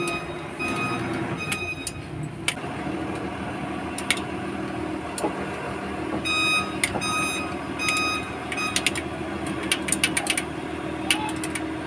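A vehicle's steady engine hum with two runs of electronic reversing-type beeps, about two to three a second, the first near the start and the second about six seconds in. Scattered sharp metallic clicks from hand work on the diesel engine's rocker arms sound throughout.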